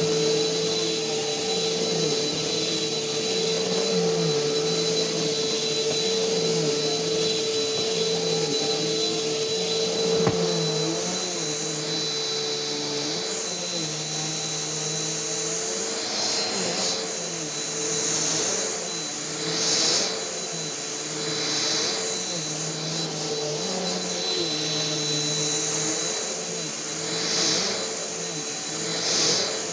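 Vacuum cleaner running steadily, with a constant motor hum and a high whine over a rush of air. In the second half the rushing hiss swells briefly several times.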